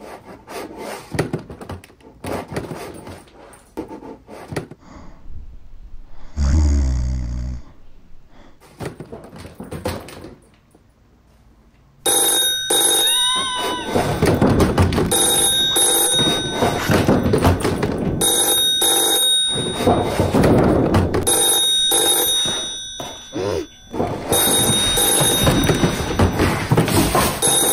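A hard-shell wheeled suitcase knocking and thudding against wooden stair steps as it is hauled, then from about twelve seconds in a retro-style desk telephone ringing loudly in long repeated rings, with a short break near the end.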